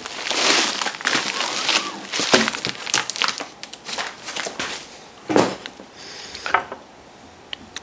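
Bubble wrap crinkling and rustling as it is handled, dense with sharp little crackles. After about five seconds it thins out to a few separate rustles.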